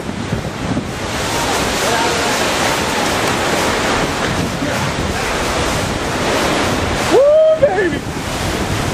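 Strong wind from a nearby tornado rushing and buffeting the microphone in a loud, gusty, steady noise. About seven seconds in, a person's voice lets out a brief shout over it.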